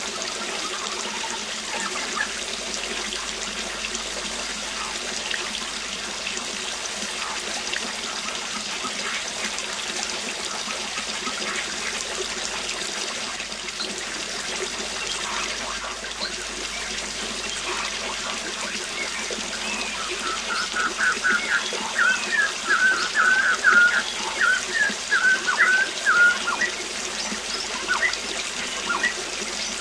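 Waterfall running steadily, with a bird singing a quick run of short chirps about two-thirds of the way through, the loudest sound.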